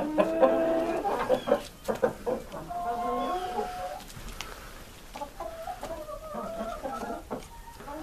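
A flock of Columbian Rock chickens clucking, several birds calling over one another, loudest at the start and quieter after about four seconds.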